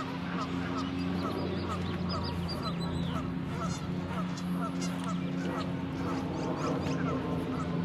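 Geese honking over and over, about two or three calls a second, over a steady low hum.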